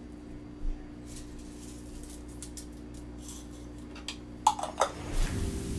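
Quiet kitchen sounds over a low steady hum as allspice berries are dropped into a pot of stewing beef: a soft thump, scattered small clicks, and a couple of sharper knocks about four and a half seconds in.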